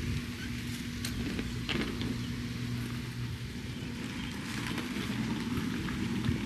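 A steady low motor hum under a rushing noise, with a few light clicks about a second and a second and a half in.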